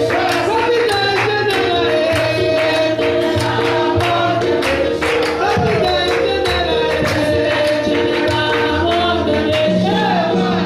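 Church congregation singing an upbeat praise song, with held accompanying chords and hand-clapping and percussion keeping a steady beat.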